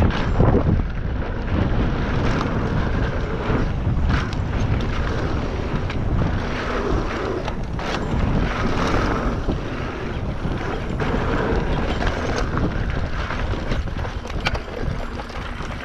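Wind rushing and buffeting the microphone while moving fast, a steady noisy rush heaviest in the low end, with scattered short knocks and clicks.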